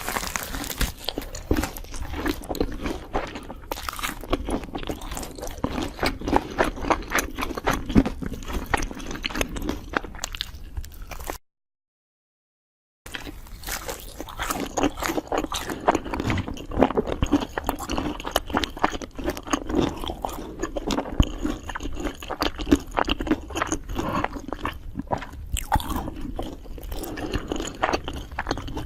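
A person eating, chewing and crunching food with many quick, irregular crunches, broken once near the middle by a short spell of complete silence.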